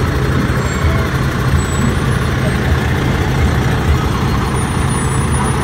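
Truck engine running steadily as a fire department brush truck, a pickup, rolls slowly past; a low, even rumble.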